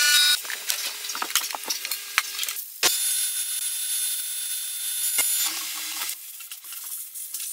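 Abrasive blast cabinet stripping paint off a diesel injection pump: crackling and rattling at first, then about three seconds in a sudden steady hiss from the air-blast nozzle that cuts off after about two and a half seconds.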